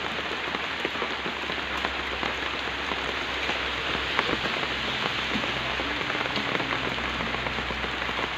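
Steady hiss and patter of falling water, like rain, with scattered small drips and a faint low hum underneath.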